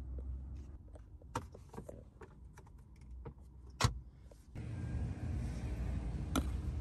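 Light clicks and taps of hands handling a car's interior fittings, with one sharper click about four seconds in. A steady low rumble starts suddenly just after it, and another click comes near the end.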